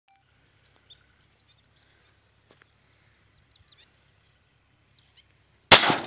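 Faint scattered chirps of small birds, then near the end a single loud 12-bore shotgun shot that rings on briefly.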